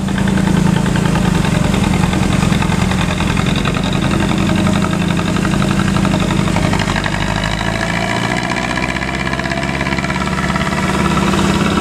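Bus diesel engine running steadily through a 'ngorok' (snoring) exhaust: a deep, even, rumbling throb.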